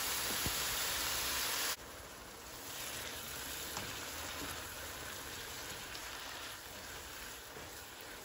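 Evaporated milk poured onto hot toasted coconut and sugar in a pan, sizzling loudly. The sizzle drops off sharply a little under two seconds in, leaving a quieter, steady sizzle as the mixture is stirred.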